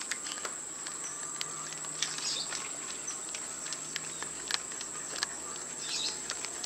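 Insects droning steadily at one high pitch, with scattered light clicks throughout and a couple of short faint chirps.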